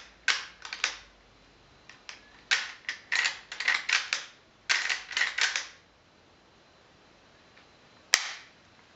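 The lever action of a stainless lever-action rifle being worked by hand: bursts of quick metallic clicks and clacks in several clusters. After a pause, a single sharp snap near the end.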